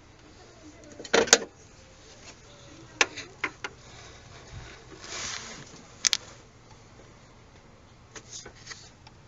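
Irregular sharp clicks and clunks, a few seconds apart, like handling of hard objects; the loudest is a double clunk about a second in, and a short hiss comes a little past the middle. There is no steady running engine or rhythmic knock.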